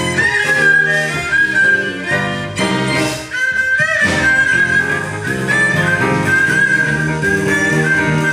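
Haegeum playing a melody of sliding, wavering notes over piano and cello accompaniment, with a short break in the music about three seconds in.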